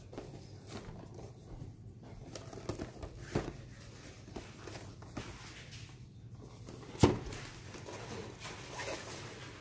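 A cardboard toy box being handled and turned over in the hands, with light rubbing and small taps. A single sharp knock about seven seconds in comes as the box is set down on a wooden tabletop.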